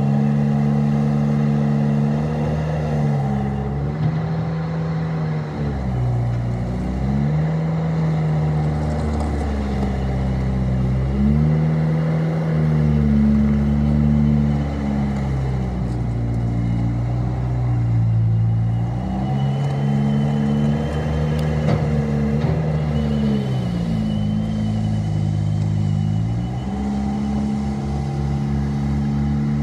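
Bobcat T250 tracked skid steer's diesel engine running continuously. Its note dips in pitch and climbs back up about five times.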